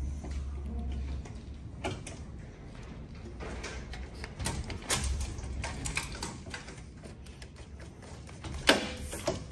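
Rubber door seal being pushed by hand into a metal drain channel: scattered clicks and small knocks as it is seated, the loudest near the end.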